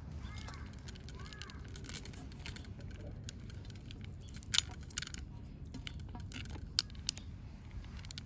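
Cats eating dry food: a run of small crunches and clicks, with a few sharper clicks in the middle. Three short rising-and-falling animal calls come in the first second or so.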